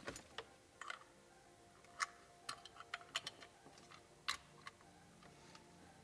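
Faint, irregular small clicks and taps of plastic connectors and cables being handled, about a dozen scattered over a few seconds.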